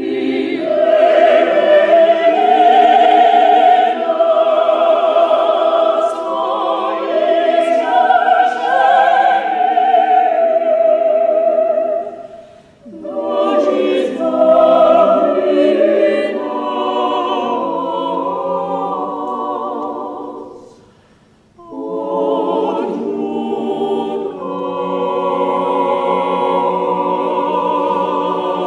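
Choir singing a Russian sacred choral piece in sustained chords, in three phrases with short breaks about 12 seconds in and again about 21 seconds in.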